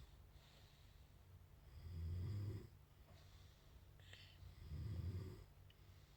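Snoring in sleep: two snores about three seconds apart, each lasting about a second.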